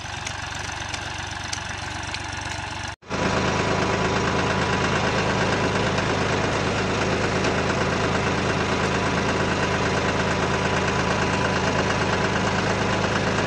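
Diesel tractor engine running steadily while it pulls a ridging implement through a field. The engine is further off at first, then after a short break about three seconds in it is much louder, heard from on board the tractor.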